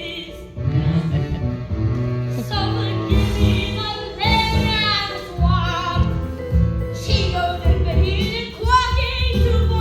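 Singing of a show tune over instrumental accompaniment with a strong bass line.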